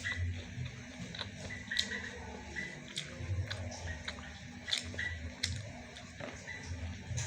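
A person chewing fried sweet corn close to the microphone: irregular crisp clicks and soft low thuds of the jaw working, at an uneven pace.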